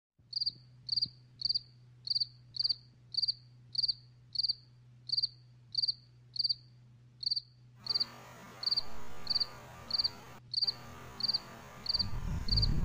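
Cricket chirping: short high chirps, each a quick run of pulses, evenly spaced at nearly two a second. Partway through, a faint steady hiss joins underneath, and a low rumble rises near the end.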